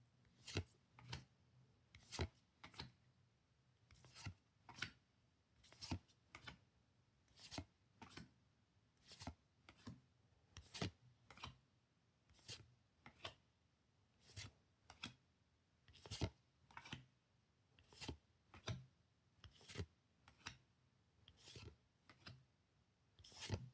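Pokémon trading cards slid one at a time off a freshly opened pack's stack, each move a short, soft swish of card against card, coming about once or twice a second.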